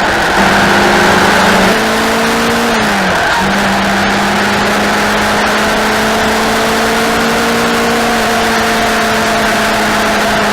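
Racing motorcycle engine running hard at a near-steady pitch. It rises slightly, drops sharply for a moment about three seconds in, as at a gear change or throttle lift, then pulls steadily again.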